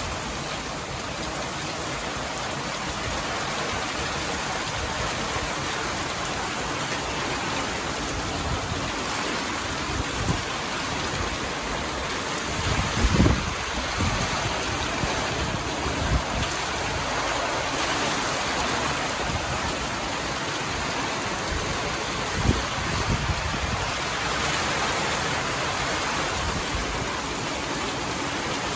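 Heavy rain pouring down in a storm, a steady hiss with a few short low thumps, the loudest about halfway through.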